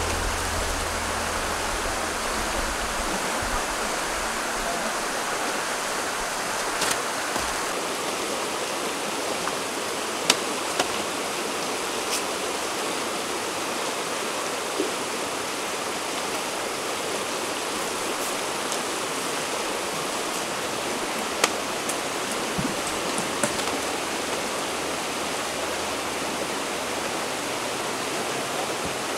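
Shallow river running over rocks: a steady rushing of water. A few sharp clicks and knocks scattered through it as the rooftop tent's cover is unfastened and handled.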